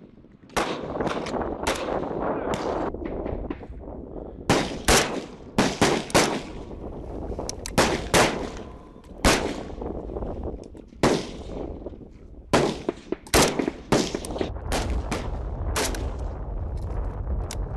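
Kalashnikov-pattern assault rifles firing single shots from several shooters at once: irregular sharp cracks, some in quick clusters, each with a short echo.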